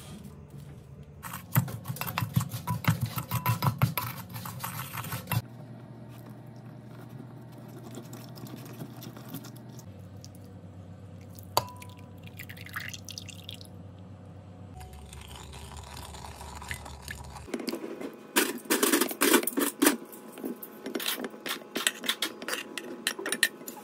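Kitchen prep sounds at a glass bowl. First comes gritty crunching of sugar being rubbed with lemon zest and mint leaves. Then lemon juice drips from a plastic citrus juicer into the bowl, and near the end chunks of melon slide off a cutting board and knock and clatter into the glass bowl.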